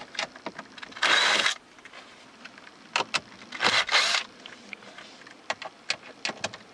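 Cordless impact driver running in two short bursts, about a second in and near the middle, backing out Phillips screws from the stereo's metal mounting bracket. Sharp clicks and taps of the bit against the screws and bracket come in between the bursts.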